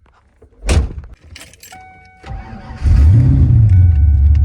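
A thump, then a steady electronic tone comes on. The Fox-body Mustang's engine cranks, catches about two and a half seconds in, revs briefly and settles into a steady idle.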